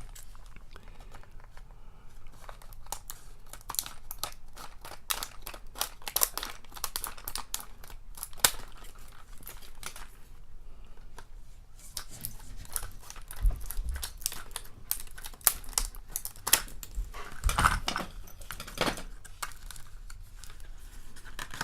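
Retail packaging being opened by hand to get a faucet lock out: irregular crinkling, tearing and small clicks, with a few sharper snaps.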